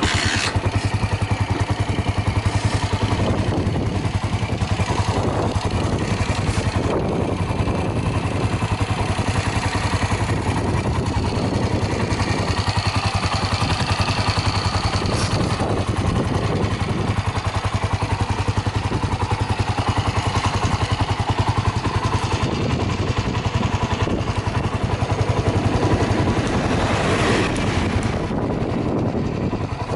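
Suzuki Grasstracker Big Boy's air-cooled 250 cc single-cylinder four-stroke engine starts up and runs at a steady idle, with an even beat and no unusual knocks or noises.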